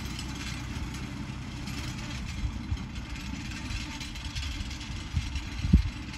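Tractor engine running steadily as it pulls a mower through alfalfa, under an uneven low rumble. A brief loud thump comes near the end.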